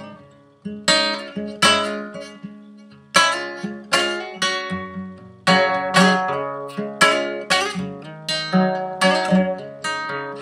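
Nylon-string classical guitar played solo, strummed chords struck about once or twice a second and each left to ring out and fade, after a brief pause near the start.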